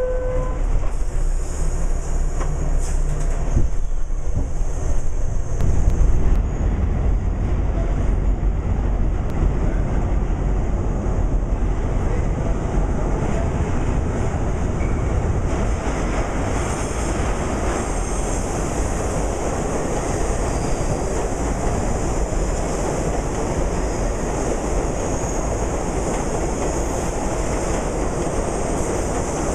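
New York City subway train running through a tunnel: a steady rumble and wheel noise, the low rumble growing heavier about six seconds in, with a faint high whine that comes and goes.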